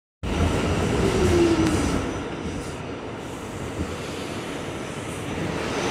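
R46 subway car heard from inside as it slows into a station: a steady rumble of wheels and running gear, with a whine that falls in pitch about a second in, and the overall noise easing off as the train decelerates.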